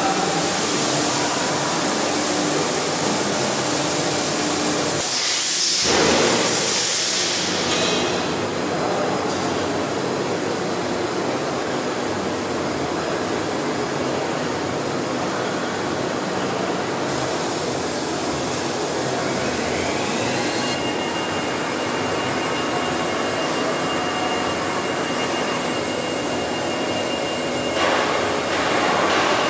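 Automatic pipe-drilling machine and its drives running with a steady rushing noise. About 17 seconds in a high hiss starts and cuts off about 4 seconds later, as a rising whine levels off into a steady high tone.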